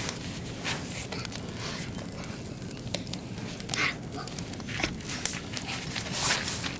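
Oak and beech firewood burning, crackling with irregular sharp pops over a steady low rush of the flames, with a few louder hissing flares about four and six seconds in.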